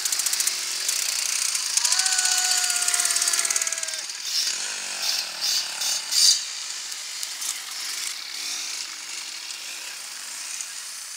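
Dirt bike engine running hard close by, a fast pulsing exhaust note whose pitch sags slightly as the bike passes and pulls away. From about four seconds in come a few short, sharp bursts of sound, then a quieter stretch with engines further off.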